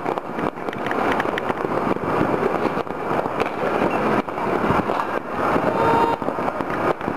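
Fireworks and firecrackers going off all over a city, heard from a distance: a dense mass of bangs and pops running together into a steady din, with sharper cracks scattered through it.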